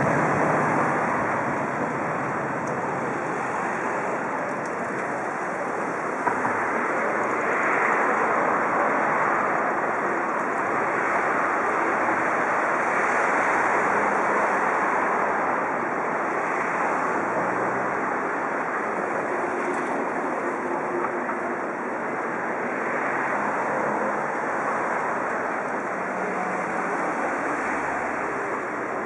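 Steady rushing outdoor noise that swells and eases slowly, with no clear single source standing out.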